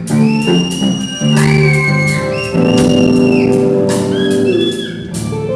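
Music: held organ-like keyboard chords with high notes that slide in pitch, over a beat.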